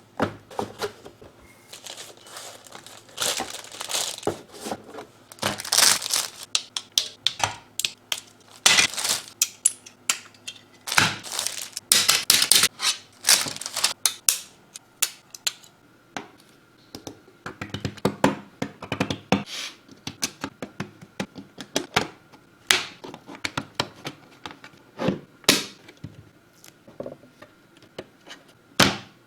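Mechanical keyboard kit parts and their packaging being handled: plastic crinkling and tearing in several stretches, among irregular clicks and knocks of small hard parts.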